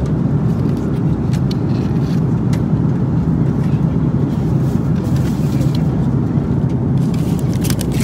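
Steady low rumble of engine and airflow noise inside an Airbus A330-300's economy cabin, with a few light clicks over it.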